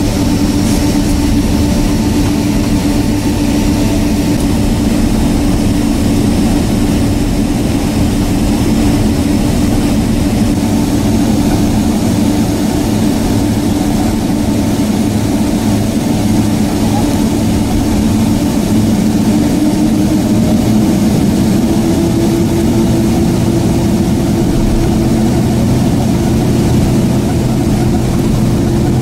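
Jet airliner's engines at taxi power heard from inside the passenger cabin: a loud, steady drone with a low hum, its pitch edging up slightly about two-thirds of the way through.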